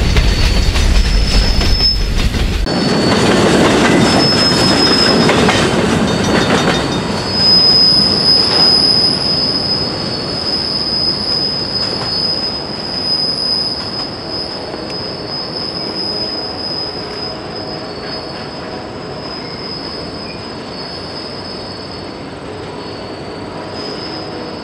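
Freight cars of a long train rolling past close by with a heavy rumble at first. Then the train's wheels squeal steadily and high-pitched as the cars go away around a curve, the sound slowly fading.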